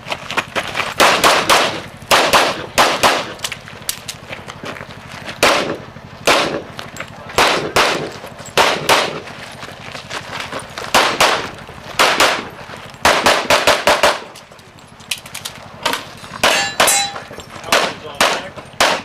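Pistol shots in quick strings, mostly in pairs, with short pauses between strings and a longer pause in the middle. A few metallic clangs and a brief ring come from steel targets being hit.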